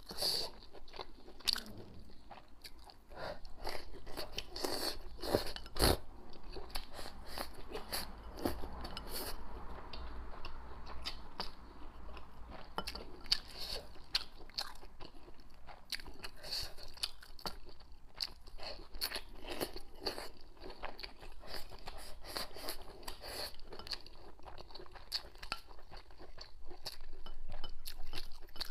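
A person chewing and biting hot pot food, aged bean curd skin with rice, with many small mouth clicks and crunches throughout and one sharper click about six seconds in.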